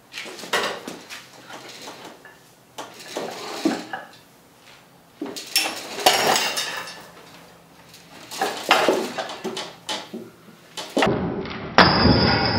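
Steel weight plates and chain clinking and knocking in irregular bursts as the stack is hoisted in pulls on a rope through a pulley. Near the end a loud clatter comes as the glued wood block breaks and the plates drop to the floor.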